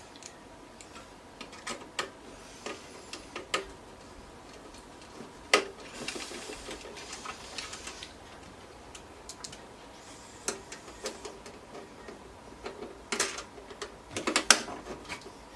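Irregular clicks, taps and knocks of hands working on parts inside a desktop PC case, with a short rustle about six seconds in and a cluster of louder knocks near the end.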